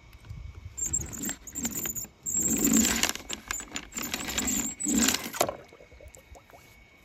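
Die-cast toy car pushed back and forth across paint-covered paper on a table, its small wheels rattling and scraping in a few long passes, then stopping about five and a half seconds in.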